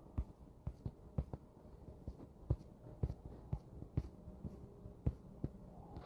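A series of faint, sharp clicks or taps at irregular spacing, a few a second.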